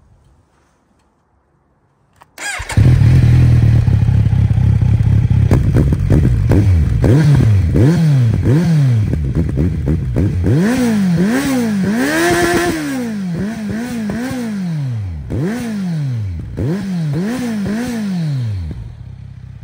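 Kawasaki Z900's inline-four engine starting through an SC Project SC1-R carbon-fibre silencer about two and a half seconds in. It idles briefly, then revs in a string of quick throttle blips, one held a little longer about halfway, before settling back to idle near the end.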